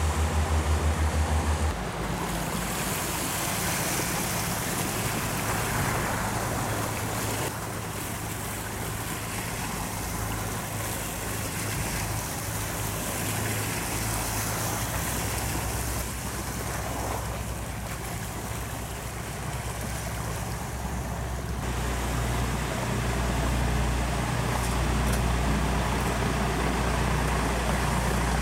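Engine of a passenger river boat running at speed, a steady low drone, with the rush of its wake on the water. The sound changes abruptly several times.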